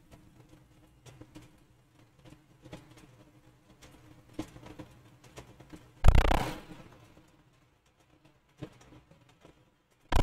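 Faint, scattered clicks of a computer mouse, with a short, loud rush of noise about six seconds in that fades within a second.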